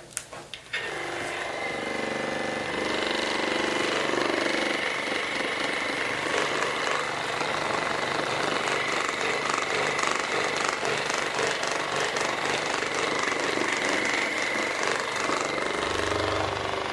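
Handheld electric massager running steadily against the back, a rapid mechanical buzzing pulse that starts about a second in.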